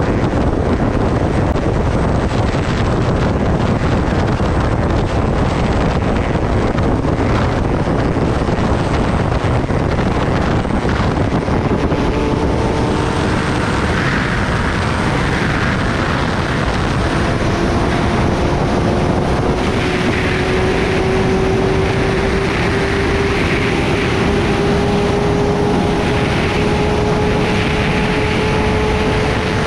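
Wind rushing over the microphone of a sport motorcycle riding at highway speed, a loud steady roar. From about halfway through, the engine note rises slowly as the bike accelerates.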